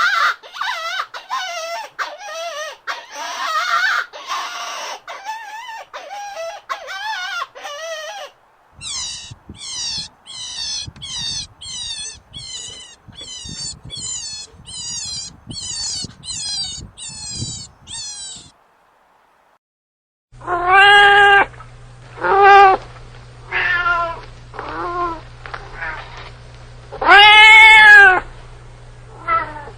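A run of animal calls in turn: dense, harsh pitched calls at first, then about a dozen and a half short, sharply falling high calls at a regular pace of under two a second. After a short pause, a domestic cat meows loudly about six times, each call rising and falling in pitch, over a steady low hum.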